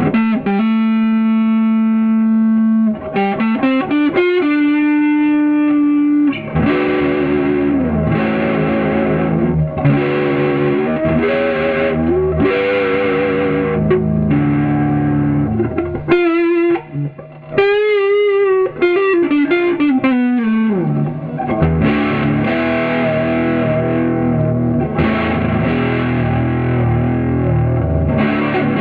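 Guyatone LG-120T electric guitar played through an amplifier: a note held for a few seconds, a short run of rising notes, then rhythmic strummed chords. About two-thirds of the way through, the pitch wavers with vibrato and then slides down before the chords return.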